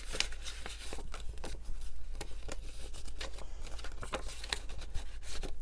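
Paper banknotes and paper cash envelopes being handled: crisp rustling with many small clicks and taps as bills are pulled out.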